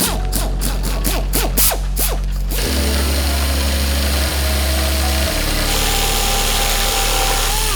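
Hand tools and a power tool working on a car, over background music with deep held bass notes: a quick run of ratchet clicks for the first two and a half seconds, then a steady whirring hiss of a power tool.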